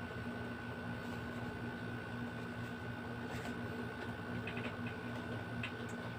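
Steady room hum with a constant high whine, and a few faint small clicks and rustles from handling the phone box.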